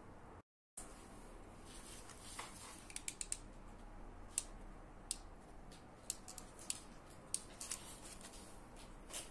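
Faint, scattered light clicks and crinkles: a paper cut-out being handled and dabbed with a hot glue gun, over a low steady hum. The clicks come irregularly, a few in quick succession at times.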